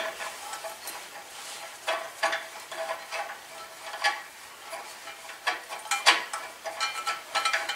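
Hand tools clinking and scraping against metal engine parts of a riding mower, in scattered light clicks, a few with a short metallic ring.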